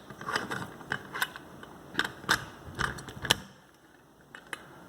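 Small metal parts being handled: a lock cylinder and a small vise being set up and repositioned, giving a string of light clicks and knocks that stop about three and a half seconds in.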